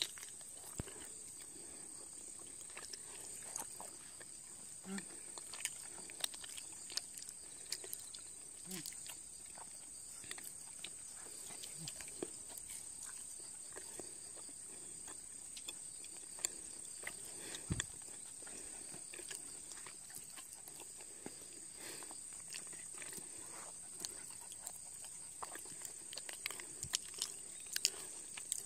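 White Jindo puppy making short grunts and snuffles while begging for treats, among scattered small clicks, over a steady high-pitched hiss.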